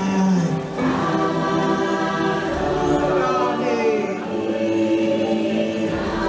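Choir-style singing over music, the voices holding long sustained notes.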